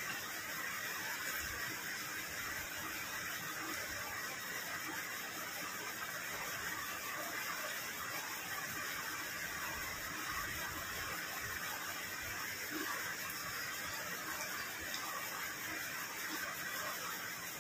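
Rain falling steadily, not a downpour: an even hiss with no breaks.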